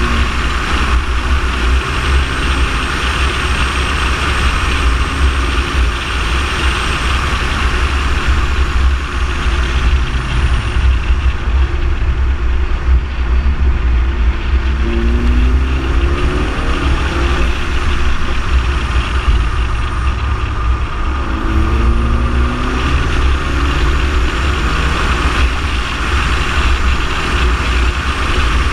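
Ford Focus ST driving at speed, heard from a camera on the outside of the car: steady heavy wind rumble and tyre-on-road noise, with the engine note rising as it accelerates about halfway through and again a few seconds later.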